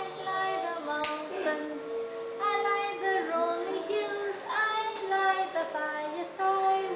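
A song playing, with high child-like singing over a steady held backing tone, and a single hand clap about a second in.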